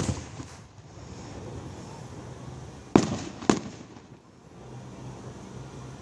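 Aerial fireworks shells bursting: two sharp bangs about half a second apart, some three seconds in, with the fading tail of another bang at the start.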